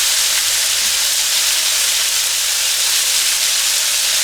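Thinly sliced chicken breast frying in hot oil in a wok, a steady high-pitched sizzling hiss.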